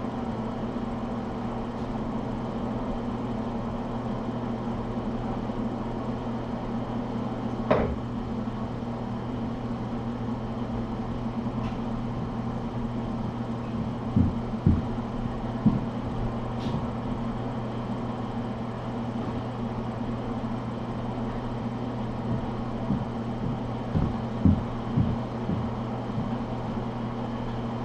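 Steady low electrical hum of a room appliance, with a sharp click about a third of the way in and a few soft low thumps later on.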